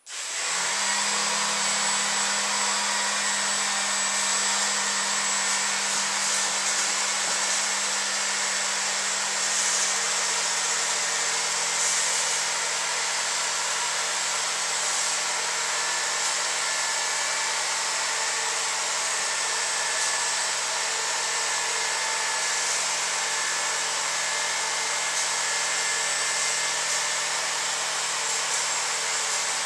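Small DC motors and fans of a homemade hovercraft, four 1.5-volt lift motors plus the rear thrust fan, driven on a 3.7-volt LiPo battery. They start together right at the beginning and run on with a steady whirring whine.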